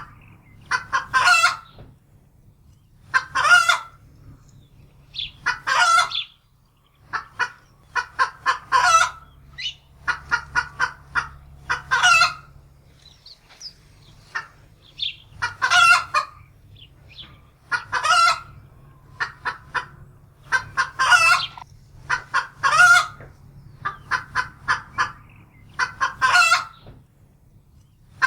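Domestic hen cackling in alarm: quick runs of short clucks, each ending in a long, loud squawk, repeating every two to three seconds.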